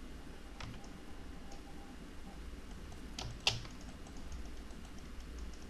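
A few sparse computer keyboard keystrokes, the loudest about three and a half seconds in, over a faint steady background.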